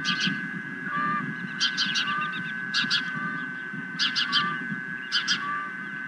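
Osprey calling: five short runs of sharp, high chirps, one about every second, over a low wind rumble and a steady high electronic whine.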